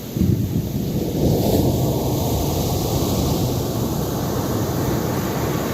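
Wind rushing over the microphone of a moving motorcycle, a steady low roar with no clear engine note, rising sharply just after the start.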